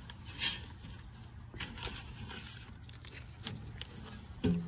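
Paper mail rustling and scraping in the hands in a few short bursts, the loudest about half a second in, over a steady low rumble of wind on the phone's microphone. A short vocal sound comes near the end.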